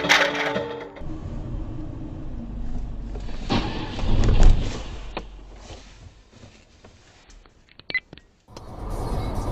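Car-interior dashcam audio: steady engine and road hum, then a loud, muffled crash of two cars colliding ahead about four seconds in, dying away over the next few seconds. A few sharp clicks follow near the end.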